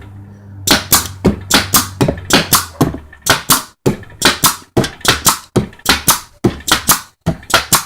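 Homemade air compressor built from a refrigerator compressor, its motor giving a steady low hum. Over it comes a rapid series of short, sharp bursts, about two to three a second.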